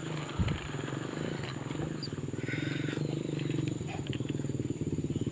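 Fishing reel being cranked to wind in line after a missed strike: a steady low purring whir with a fine rapid ticking that cuts off abruptly at the end.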